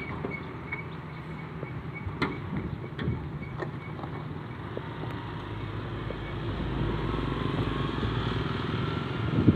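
Motorbikes approaching on the road, their engines growing louder through the second half over general traffic noise. A faint, high, repeated short beeping runs through the first half, with a few sharp clicks.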